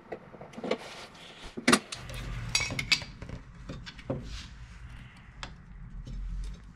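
Light clicks and taps of a steel rule, marker and aluminium angle pieces being handled on a workbench, with one sharper click a little under two seconds in. A low steady hum starts about two seconds in.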